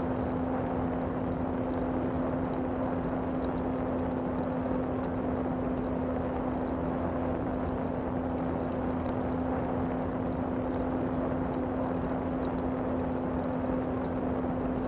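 Steady rushing of strong wind and falling water, with a constant low hum running through it.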